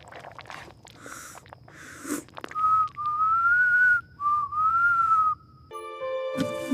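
A short whistled tune, a single clear wavering note line in two phrases with a brief break between them, starting about two and a half seconds in. Music with sustained tones comes in near the end.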